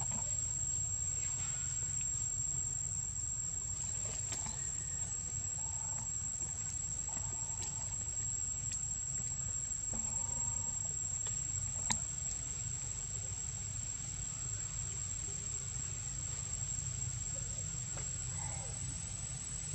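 Steady high-pitched drone of insects over a low rumble, with a faint click about twelve seconds in.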